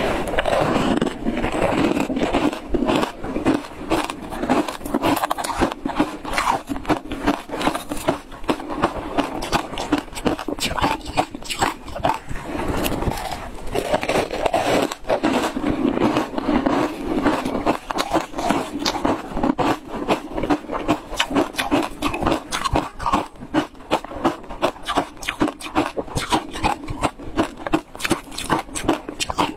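Chunks of ice coated in matcha powder being bitten and chewed right at a clip-on microphone: a dense, continuous run of crunching and cracking as the ice breaks between the teeth.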